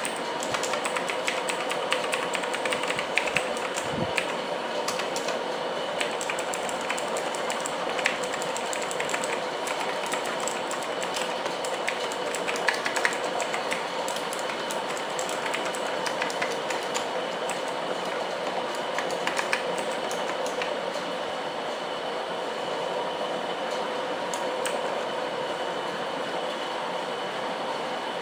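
Keys of a mechanical keyboard with clicky Kailh Blue switches being pressed, many light clicks in quick runs that thin out after about halfway. Throughout, a steady background hiss with a faint hum sits under the clicks and is louder than they are.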